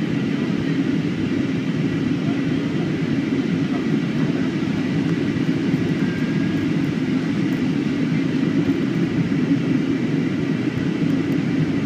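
Steady cabin noise inside an Airbus A330-300 airliner in flight on its descent: an even low rush of airflow and the twin jet engines, with no changes.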